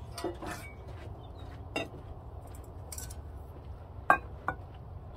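Light clinks and knocks of small hard objects being handled, about half a dozen spread out. The loudest is a sharp clink about four seconds in, with another half a second later, over a steady low background noise.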